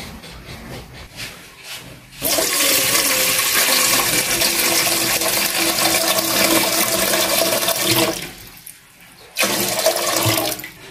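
Water poured from a container into a metal cooking pot, splashing steadily for about six seconds starting two seconds in, then a short second pour near the end.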